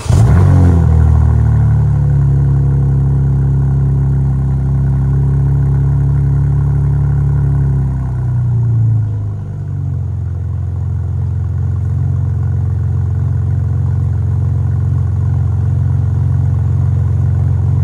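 BMW M4 Competition's 3.0-litre twin-turbo inline-six starting up, with one of its two exhaust resonators removed. It flares on start, holds a high idle for about eight seconds, then drops and settles to a lower, steady idle.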